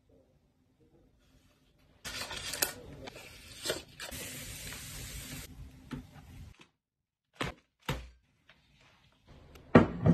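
Kitchen handling sounds during cake-making: a few seconds of steady rustling and scraping with small clicks, which cuts off abruptly, then a couple of light knocks and a louder thump of a ceramic bowl set down on the table near the end.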